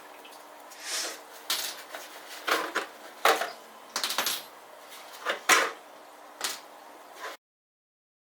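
Irregular clicks, knocks and rattles of a nitro RC monster truck's plastic and metal parts as it is handled and looked over with gloved hands, with a few short scraping rustles. The sound cuts out completely about seven seconds in.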